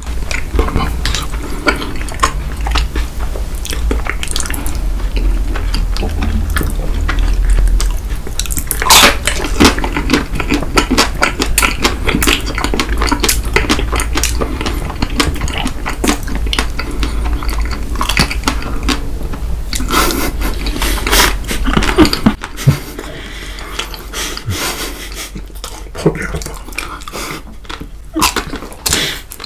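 Close-miked chewing and crunching of chocolate-coated ice cream bars: a dense run of small crackles and clicks, over a low rumble that fades after about 22 seconds.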